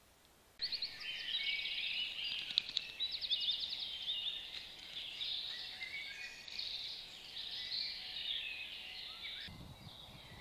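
Dawn chorus of several songbirds, with overlapping trills, chirps and whistled phrases that start suddenly about half a second in.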